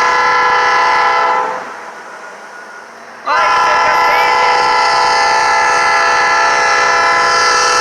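Norfolk Southern diesel locomotive's air horn sounding for the grade crossing, a chord of several steady notes. One long blast breaks off about a second and a half in, and after a gap of about two seconds a second long blast starts abruptly and holds.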